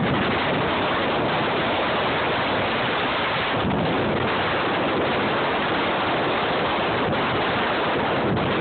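Strong hurricane wind blowing straight across a phone's microphone: a steady, loud rush of noise.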